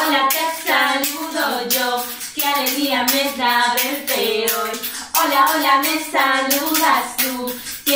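A woman singing a children's song on held notes, with hand claps.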